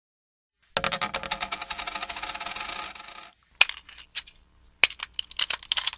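Intro sound effect of small metallic clinks: a dense, rapid cascade with a high ringing for about two and a half seconds, then a few scattered single clinks.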